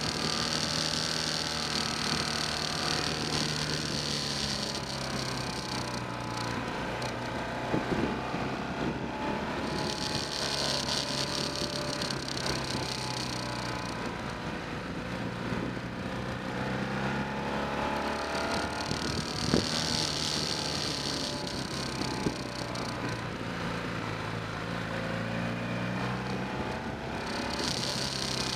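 Motorcycle engine running on the move, its pitch rising and falling with throttle and gear changes, under steady road and wind noise, with a few short knocks. A high buzz comes and goes in several stretches of a few seconds.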